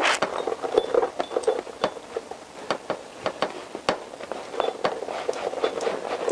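Honda CBR1000F swing arm knocking and clicking against the frame many times in quick succession as it is tugged and wiggled in its pivot. It is stuck and will not come back out.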